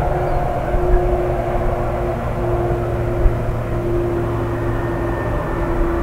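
Boeing 767 airliner's twin jet engines running as it rolls out along the runway after landing: a steady deep rumble with a steady humming engine tone over it.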